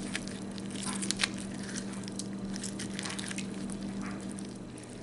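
Juice being squeezed out of a fork-pierced lemon half: wet squishing of the pulp with many small irregular crackles and clicks.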